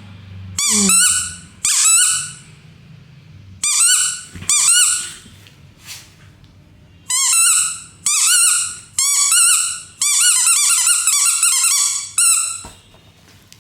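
A dog's new light-up toy ball making its high, warbling squeaky sounds in repeated bursts of about a second each, with a longer run of them near the end.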